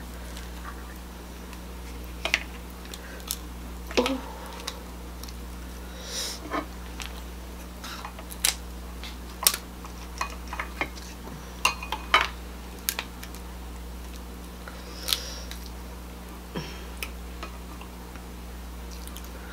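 Cooked king crab leg shells being snapped by hand and cut with kitchen scissors: scattered sharp cracks and snips at an irregular pace, over a steady low hum.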